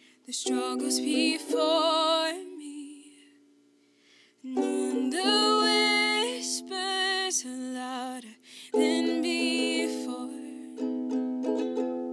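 A woman singing a worship song over ukulele chords, in three phrases of long held notes with vibrato, with a pause of about two seconds after the first phrase.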